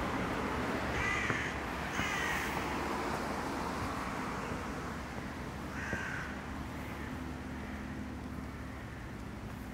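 Crows cawing: harsh single caws about a second in, again a second later, and once more about six seconds in, over a steady low city hum.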